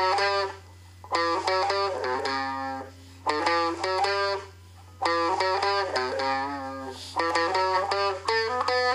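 Guitar music: quick runs of plucked notes in short phrases broken by brief pauses, over a steady low hum.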